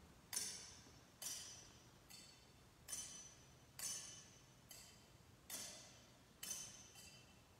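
Metal thurible (censer) swung on its chains, the chains and lid clinking against the bowl about nine times, a little under a second apart, each clink ringing briefly. It marks the incensing of the Gospel book before the Gospel reading.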